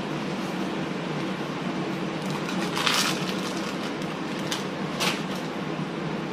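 Two brief rustles from a red velvet cake layer being handled and set down on a plate, one about three seconds in and a shorter one about five seconds in, over a steady background hiss.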